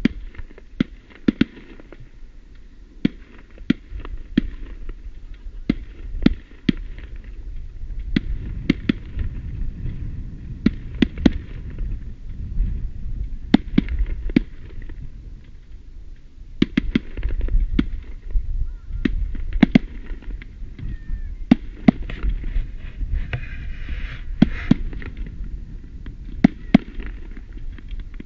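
Fireworks display: aerial shells bursting in an irregular string of sharp bangs, sometimes several a second, over a low rumble.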